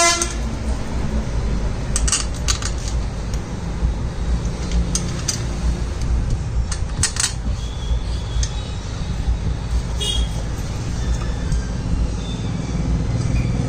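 Sharp metal clinks and taps, a few of them in pairs, as small scooter parts and a hand tool are handled during reassembly, over a steady low background rumble.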